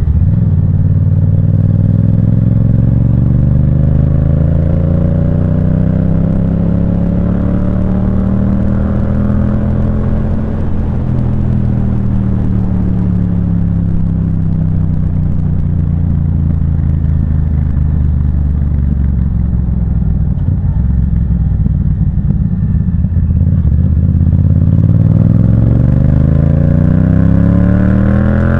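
Yamaha MT-07's 689 cc parallel-twin engine through an aftermarket Firetong sport exhaust, under way: the engine note climbs slowly for about ten seconds, eases back down over the next ten, then rises again near the end as the bike accelerates.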